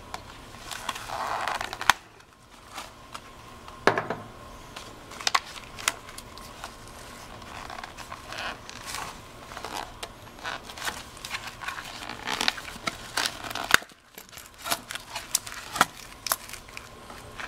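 Nylon holster being unpacked from its cardboard backer card: the card and a plastic tie crinkle, scrape and click as they are handled, with a few sharper clicks among the scattered rustling.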